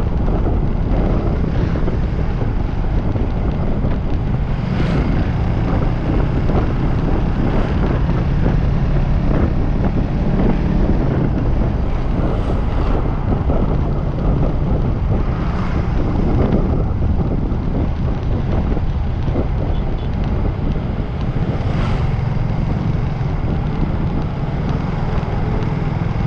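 Wind buffeting the microphone while moving along a road, a steady low rumble with a faint engine hum underneath and a few brief swells of passing traffic.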